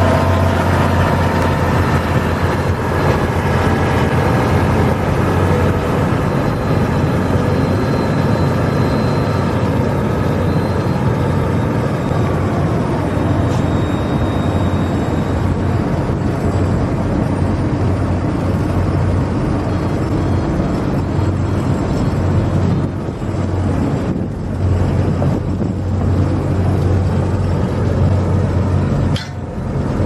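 Heavy diesel paving machinery (asphalt pavers, rollers and dump trucks) running steadily, a continuous low engine hum with a dense mechanical rumble over it. A few sharp knocks come near the end.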